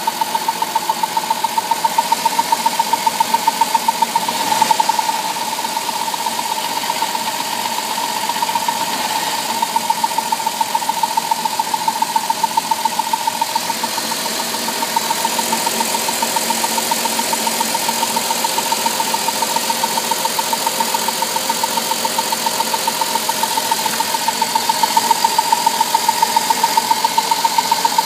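The 3.8-litre V6 of a 2003 Chrysler Town & Country minivan running steadily with a rhythmic ticking, about three ticks a second, a tick whose cause the owner does not know.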